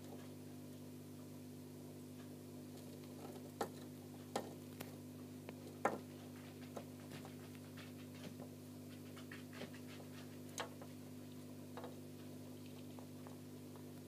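A steady low hum runs throughout, with an irregular scatter of sharp clicks and taps over it, the loudest about six seconds in.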